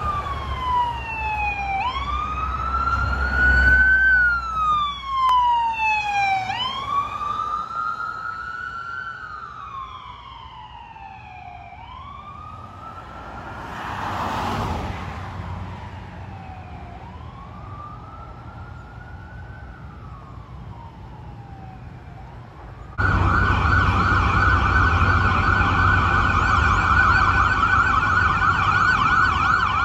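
Emergency-vehicle siren on wail, rising and falling about every five seconds, growing fainter as it moves off, with a swell of passing-vehicle noise twice. About two-thirds of the way in, it cuts abruptly to a louder ambulance siren on a fast yelp, warbling several times a second.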